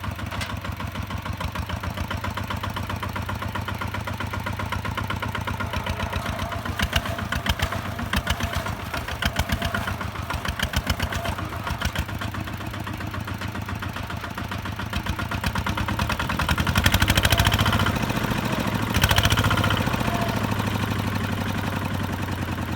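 Kubota ZT-150 single-cylinder diesel engine of a two-wheel walking tractor running with a rapid, even chugging, revving up louder twice in the second half.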